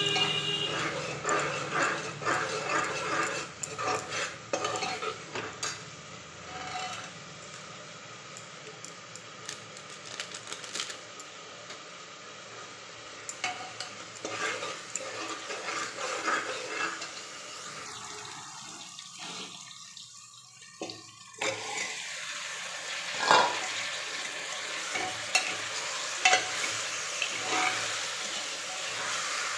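A steel spoon scrapes and clinks against an aluminium pressure cooker as a tomato-onion masala sizzles in oil. The sound drops away for a few seconds past the middle, then the sizzle and clatter come back louder as chicken pieces are stirred in.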